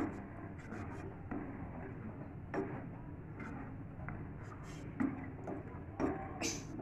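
A spatula stirring a thick tomato and spice masala in a nonstick pot, with scattered clicks and scrapes as it knocks against and drags along the pot, the clearest about halfway through and near the end.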